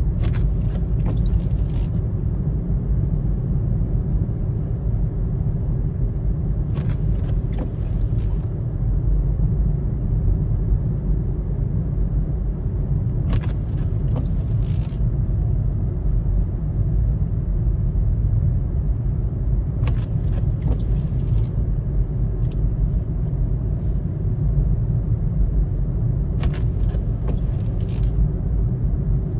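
Road and engine noise of a car driving on a snowy road, heard from inside the cabin as a steady low rumble. Short bursts of clicking come about every six to seven seconds.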